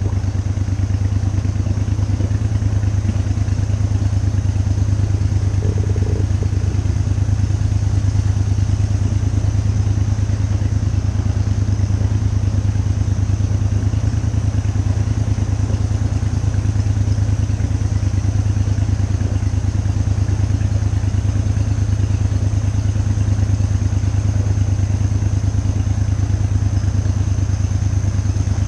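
A shallow-running boat's motor running steadily at cruising speed, a constant low drone with no change in pitch.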